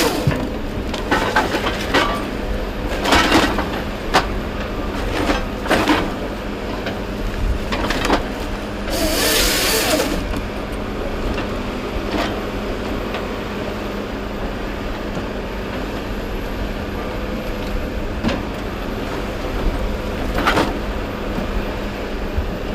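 Heavy logging machine's engine running steadily, with irregular knocks and clatter as logs are handled, and a burst of hiss about nine seconds in.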